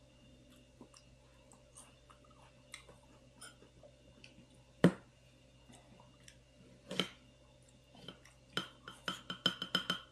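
Chopsticks clicking and tapping against a plate of watermelon cubes while people chew. There are scattered small clicks, a sharp one about five seconds in, another near seven seconds, and a quick run of clicks near the end.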